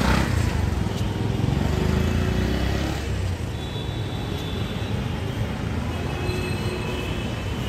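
Outdoor city street noise: a steady hum of road traffic, with a heavier low rumble for the first three seconds or so.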